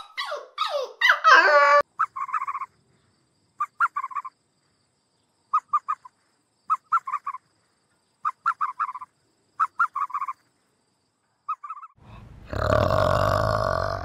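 A dog yipping and whining briefly at the start. Then come groups of three to five short, clipped chirping calls, repeating about every second and a half. Near the end a loud, low, sustained call from a male orangutan sets in.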